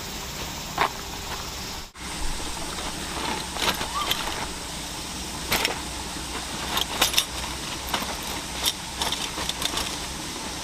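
Scattered light clicks and clinks, irregular, over a steady background hiss; the sound drops out briefly about two seconds in.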